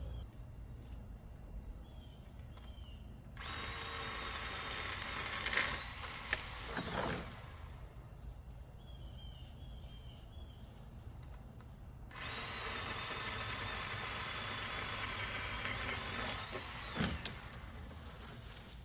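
Pole chainsaw running in two cuts of about four and five seconds, a high steady whine that drops in pitch as the saw spins down after each cut. A couple of sharp cracks come during the first cut.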